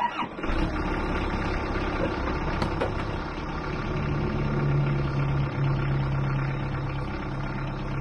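An engine starts abruptly and settles into a steady idle.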